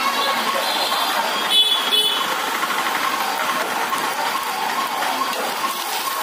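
Steady roar and sizzle of a gas-fired wok cooking fried rice, with two sharp metallic clangs of a ladle striking the wok, a little before and at about two seconds in.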